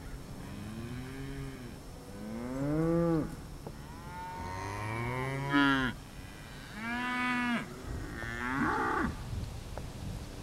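Cattle mooing, cows and calves calling to be fed: about five drawn-out calls in a row, each rising and falling in pitch. The loudest comes a little past halfway, and a higher-pitched call follows near the end.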